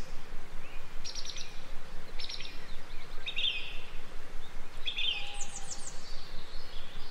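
Forest ambience: songbirds calling in short, separate trills and chirps over a steady background hiss, with a quick run of very high chirps about five seconds in.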